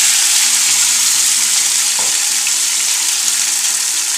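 Whole tilapia, marinated in turmeric, chilli and lemon, frying in hot oil in a frying pan just after going in: a loud, steady sizzle that eases off a little as it goes.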